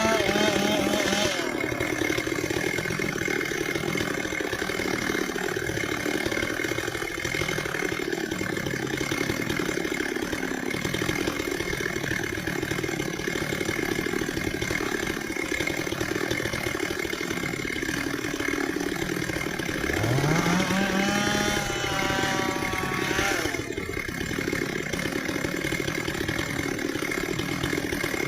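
Stihl chainsaw idling between cuts in dry ipê logs. It is revved once about twenty seconds in, the pitch rising and holding for a couple of seconds before it drops back to idle.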